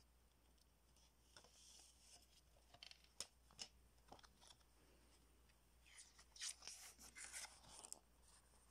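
Faint handling of a CD jewel case and its paper booklet: a few small plastic clicks as the booklet is slid out from the lid's tabs, then a busier spell of paper rustling and clicks about six to eight seconds in as the booklet is opened.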